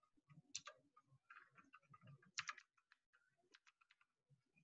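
Faint, scattered keystrokes on a computer keyboard, most of them in the first half.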